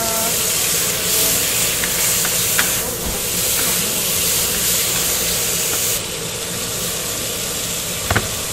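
Thin slices of beef brisket sizzling and hissing on a hot flat-top griddle as a metal spatula turns them. The hiss eases a little about six seconds in, and there is a single sharp knock near the end.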